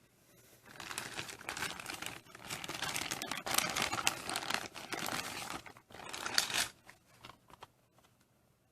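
Crinkling and rustling of something being handled, in uneven bursts over several seconds, then a few light clicks near the end.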